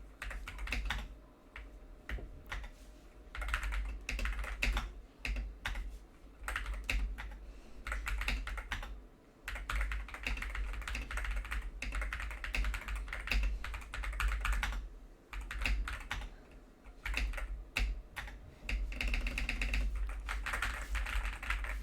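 Fast typing on an Akko 5075S mechanical keyboard fitted with Akko Cream Yellow Pro switches and PBT keycaps: rapid runs of keystrokes in bursts, with short pauses between them.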